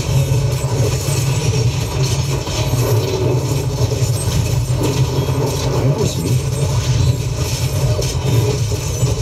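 Steady heavy low rumble with a rushing hiss above it, played back through a Razer Leviathan 5.1 soundbar.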